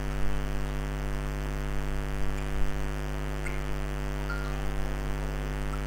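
Steady electrical mains hum: a low drone with a buzzy stack of overtones, unchanging throughout.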